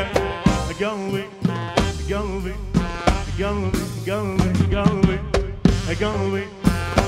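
Live band playing an instrumental passage of an Arabic pop song: a drum kit keeps a steady beat under a winding, ornamented lead melody full of pitch bends.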